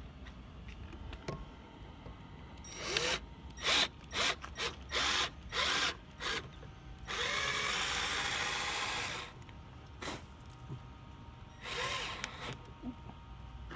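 Cordless drill-driver driving screws through an aluminium flange into a boat deck. It runs in about six short bursts, then one steady run of about two seconds, then one more short burst near the end.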